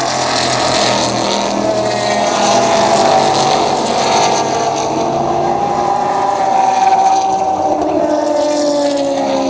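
Engines of several sports-car race cars at racing speed, overlapping in a continuous loud engine sound whose pitch slowly rises and then falls as the cars pass.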